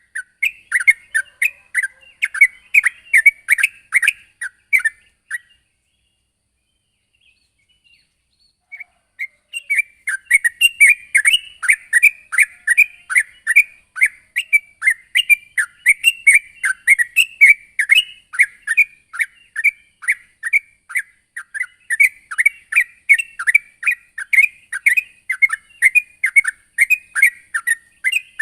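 Yellow-vented bulbul (trucukan) singing in a lively rapid run of short, falling chirps, about four a second. It breaks off for about four seconds after the first five seconds, then carries on.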